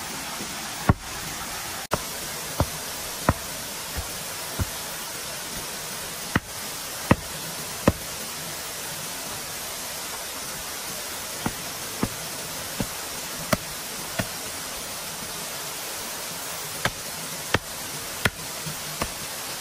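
Sharp knocks struck at a steady pace of about three every two seconds, in runs of three to six with short pauses between, over a steady hiss.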